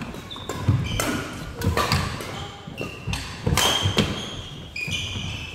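Badminton doubles rally on a wooden gym floor: repeated sharp racket strikes on the shuttlecock and quick footfalls, with short high squeaks of court shoes on the floor.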